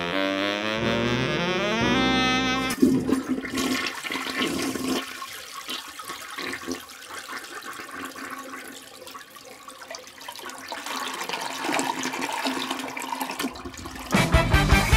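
A toilet flushing: a loud rush of water that starts sharply a few seconds in, fades, then swells again, between snatches of brass-led music at the start and end.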